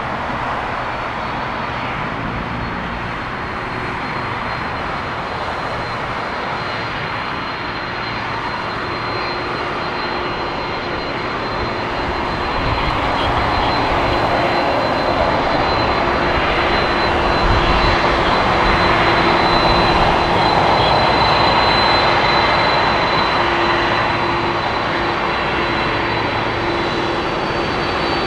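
Boeing 767-300 freighter's jet engines running as the airliner rolls slowly by after landing: a steady roar with a high whistling whine. It swells about halfway through as the aircraft comes closest, then eases slightly.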